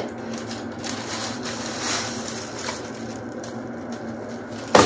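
Paper rustling and crinkling as a synthetic wig is lifted out of its paper-lined box, with one sharp, loud noise near the end.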